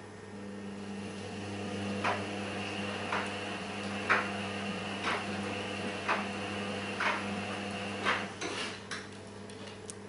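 Tumble dryer running, with a metallic clank about once a second as the drum turns, a few quicker clatters near the end, after which the running sound drops away.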